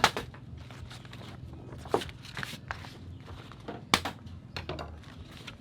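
Three sharp knocks about two seconds apart, the first the loudest, with lighter taps between them over a low steady hum.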